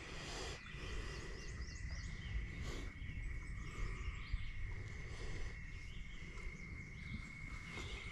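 Outdoor lakeside ambience: birds chirping in short falling notes over a steady high-pitched hum, with wind rumbling on the microphone.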